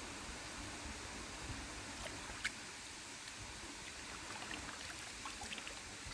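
Shallow water sloshing and dripping as a hand gropes along a canal bottom, with small scattered splashes and drips over a steady hiss.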